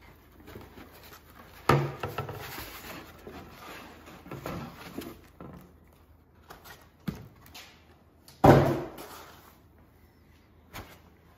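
A foam-packed parts kit being unpacked from a cardboard box: foam trays and bundled wiring rustle as they are handled. Two sudden thumps stand out, one about two seconds in and a louder one about eight and a half seconds in.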